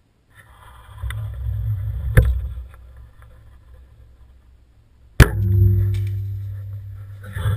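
Compound bow shot: two sharp cracks about three seconds apart, the louder second one followed by a short ringing hum, over a low rumble.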